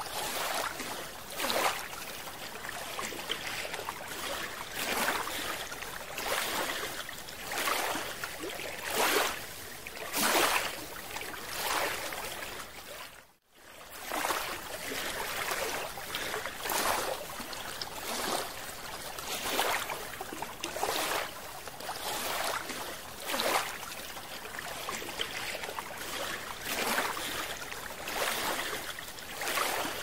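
Underwater water noise recorded by a moving camera: a steady rush that swells roughly every second and a half, briefly cutting out near the middle.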